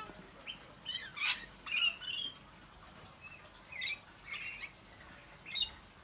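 Wild parrots screeching: a string of about eight short, shrill squawks, several in quick succession in the first two seconds, then a brief pause and a few more.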